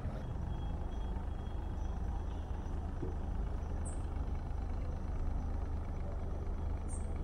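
A sailboat's engine running steadily as the boat motors along: an even, low hum.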